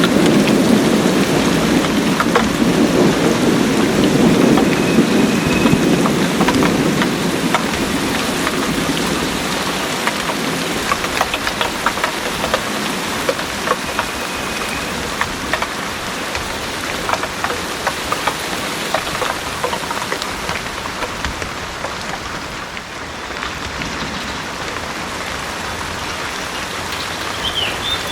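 Heavy rain pouring steadily, with many close drops ticking. A low rumble of thunder sounds through the first several seconds and fades away.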